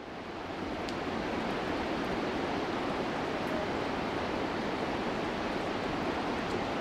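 Steady rushing of the flooded Olifants River pouring over its rocky bed and rapids, fading in over the first half second and then holding even.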